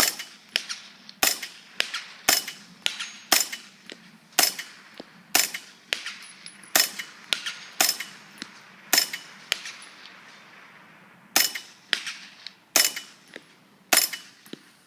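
Just Right Carbine 9mm firing subsonic rounds through a Seafire Diamond 45 suppressor: about a dozen suppressed shots at roughly one a second, each followed by a fainter click, with a pause of about two seconds after the ninth shot.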